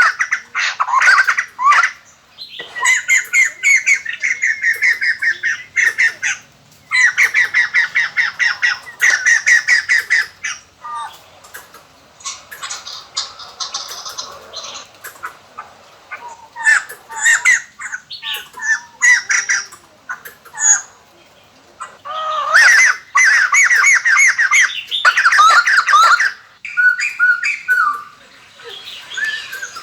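White-crested laughingthrush calling: loud bouts of rapid cackling chatter lasting a few seconds each, with short pauses between them and a quieter stretch near the middle.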